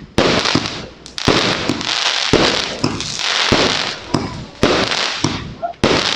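Lucky Party consumer fireworks going off in a rapid volley: about five loud bangs roughly a second apart, with smaller pops and a dense crackling hiss in between as the stars burst overhead.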